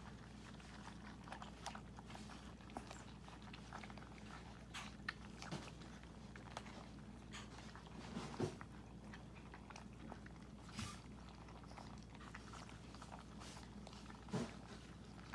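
Miniature pinscher puppies crunching dry kibble from a plastic tub: irregular small crunches and clicks, with a few louder knocks, the loudest about halfway through and near the end.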